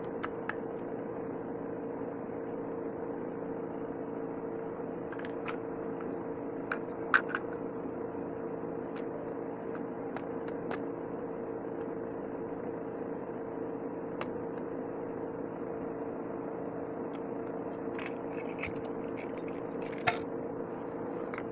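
Battery-powered Plarail toy train's small electric motor and gearbox running with a steady whirring hum, with a few sharp clicks, the loudest about a third of the way in and near the end.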